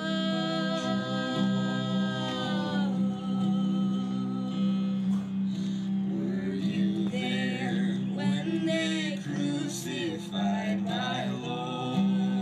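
Slow song with a twelve-string acoustic guitar and male and female voices singing together. A long note is held at the start and falls away about three seconds in, followed by further sung phrases with vibrato.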